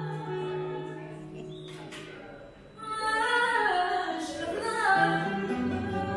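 Live fado: a woman singing, accompanied by a Portuguese guitar and a classical guitar. She holds a note that fades away about two and a half seconds in, then starts a new phrase that falls in pitch.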